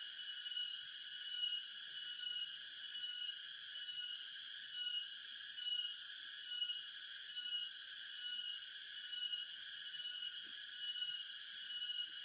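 Insects droning in a steady, high-pitched chorus that pulses a little more than once a second.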